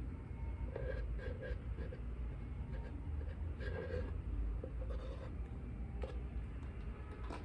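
Faint rubbing, scraping and light taps of liquid glue being spread over a plastic container, over a low steady hum.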